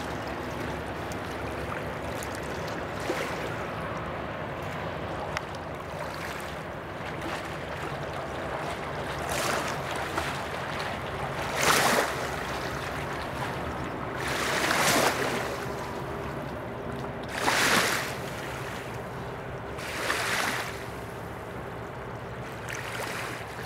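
Rhine river water lapping and splashing over a steady rushing background, with about six brief swells of splashing in the second half, each about a second long.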